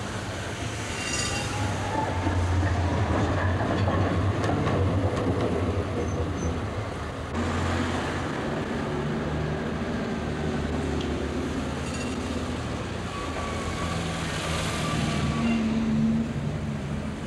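Street noise dominated by a tram running on its rails, a steady low rumble with a few thin high tones from the wheels. The sound changes abruptly about seven seconds in.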